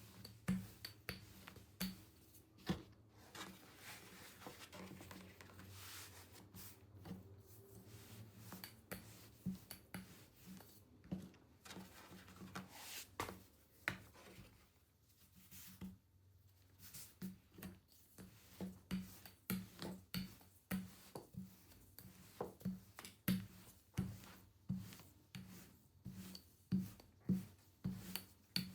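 Irregular light taps and clicks of hands and kitchen tools at work on a counter during food preparation, over a faint steady low hum.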